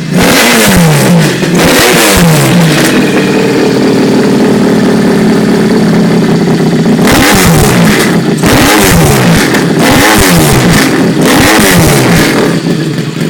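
Triumph motorcycle engine revved loudly in a string of throttle blips, each rising and falling back quickly. In the middle it holds steady at raised revs for a few seconds, then the blipping resumes.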